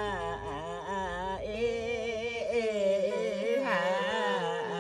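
A woman's voice singing a Limbu palam, the traditional Kirati folk song, in long held notes that waver and bend in pitch.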